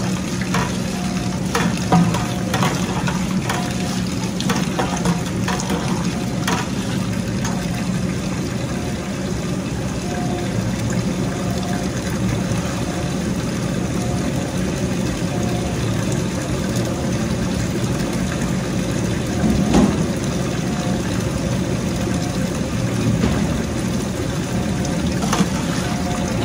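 Tap water pouring in a steady stream into a large stainless steel stockpot of tomato masala, splashing into the thick sauce, over a steady low hum. A long paddle scrapes and knocks against the pot a few times, mostly in the first several seconds.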